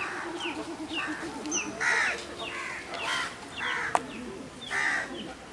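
Crows cawing, with three harsh caws about two, three and five seconds in, over another bird's short, down-slurred chirps repeating every half second or so.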